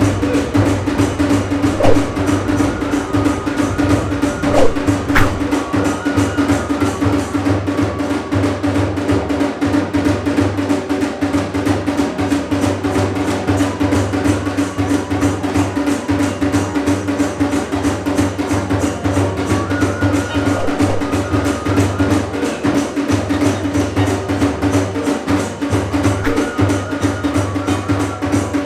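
Iwami kagura drum music: drums and percussion beating a fast, steady rhythm over a sustained low tone.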